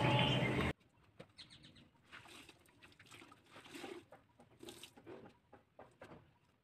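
A louder sound cuts off abruptly under a second in, leaving near silence with only faint, scattered soft rustles and ticks.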